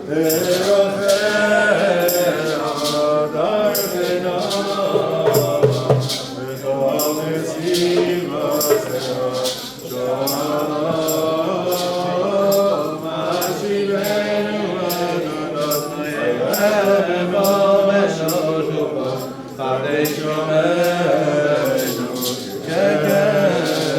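A congregation of men's voices singing a prayer melody together, with a steady percussive beat of about two strokes a second.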